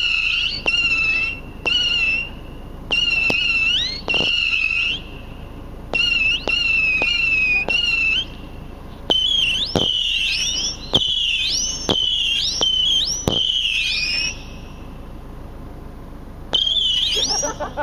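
Missile cake firing in rapid succession: each missile leaves with a sharp pop and flies with a high whistle. The whistles hold a steady pitch at first, then sweep upward in the second half. After a pause of about two seconds near the end, one more volley of whistles follows.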